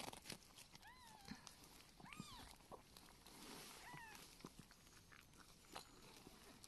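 Faint high kitten mews, three short calls that rise and fall in pitch, spread over a few seconds, with light rustling in between.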